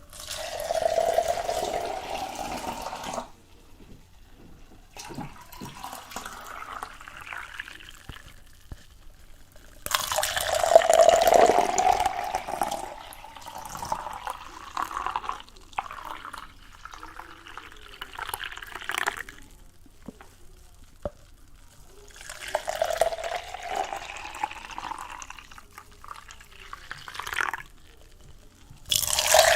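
Water running and splashing in several separate bursts of a few seconds each, with quieter gaps between them; the longest and loudest comes about ten seconds in.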